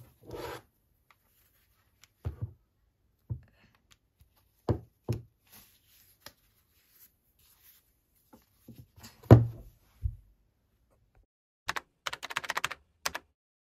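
A plastic Razer Kraken BT Kitty Edition headset being handled on a desk: scattered taps, knocks and soft rustles as its ear cups are turned and it is set down, with the loudest thud about nine seconds in. Near the end comes a quick run of sharp clicks, like typing.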